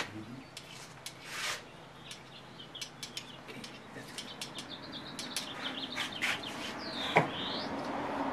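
Birds chirping in the background, a run of short high chirps followed by a dipping-and-rising call, over scattered light metal clicks and clinks of parts being handled on an engine block. The sharpest clink comes about seven seconds in.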